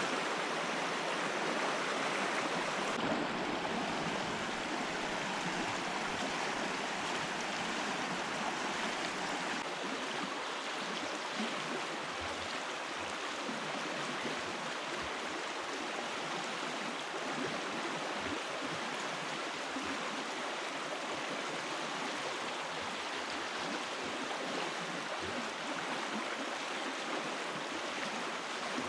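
Steady rushing of a flowing stream, an even water noise with no breaks.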